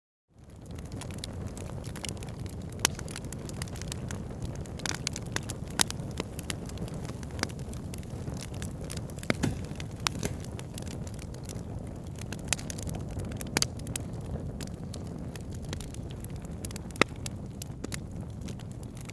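Wood fire burning in a fireplace: a steady low rumble of flames with frequent sharp crackles and pops, a few louder snaps among them. The sound fades out to silence right at the start and returns within half a second.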